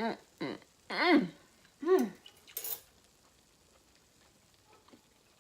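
A woman's appreciative hummed 'mmm' sounds while tasting food, three short ones in the first two seconds, each sliding up then down in pitch. A brief hiss follows, then it goes quiet.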